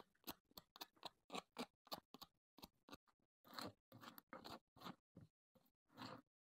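Faint, irregular crunching and clicking, a few short crunches a second, with two longer crunches about three and a half and six seconds in.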